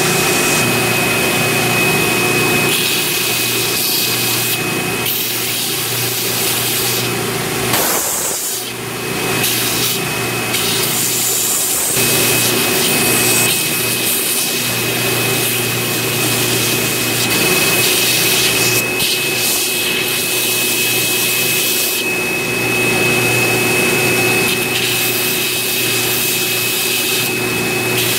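Belt sander running steadily with a high whine, its sanding belt grinding a wooden knife-handle block held against it, with a brief dip about eight seconds in.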